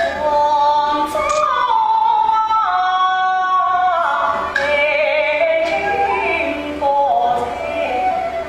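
Yue opera singing: a woman's voice sings a slow melodic line, holding long notes and sliding from one pitch to the next, with music behind it.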